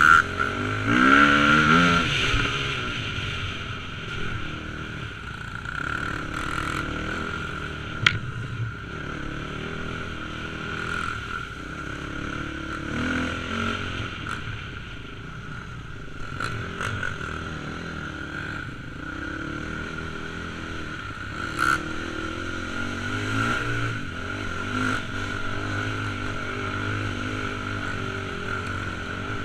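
Dirt bike engine running as the bike rides a rough, wet trail, the revs climbing and dropping about a second in and then holding fairly steady, with scattered knocks and rattles from the bumps, one sharp knock near the middle.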